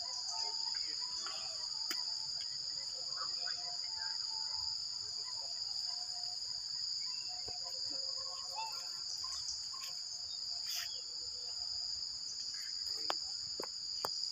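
Steady, high-pitched drone of an insect chorus, with faint scattered short sounds beneath it and a couple of sharp clicks near the end.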